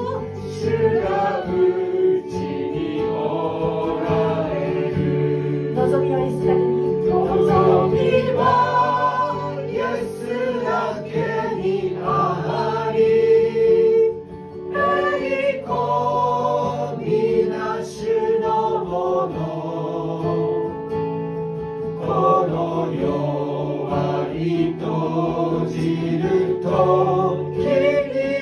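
Voices singing a Japanese worship song with acoustic guitar accompaniment.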